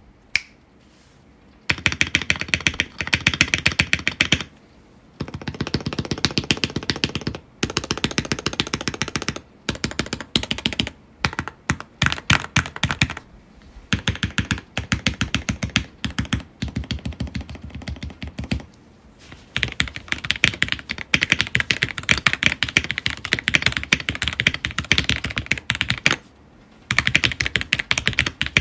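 Typing sound test on a custom KBD Fans Tofu 65 mechanical keyboard with a polycarbonate plate, hand-lubed Gateron Black Ink linear switches and low-profile keycaps: fast runs of keystroke clacks broken by several short pauses.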